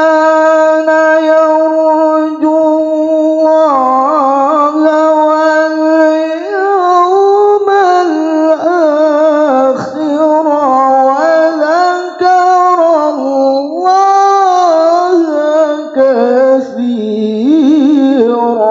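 A young man's solo melodic Quran recitation (tilawah) into a microphone. He holds one long steady note for about six seconds, then moves into rising and falling ornamented runs.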